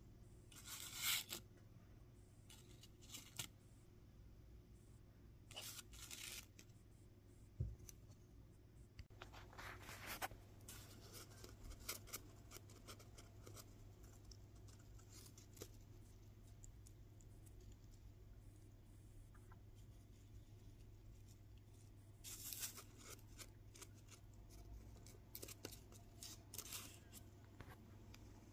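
Quiet handling of small paper model parts: scattered short rustles and scrapes of paper and card, a dozen or so, over a steady low hum.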